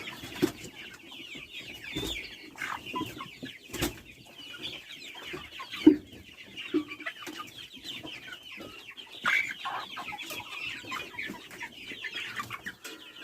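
A flock of chickens clucking and cheeping without pause, broken by a few sharp knocks, the loudest about six seconds in.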